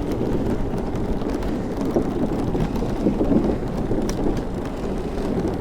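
Steady low rumble of wind buffeting the microphone of a camera on a moving bicycle.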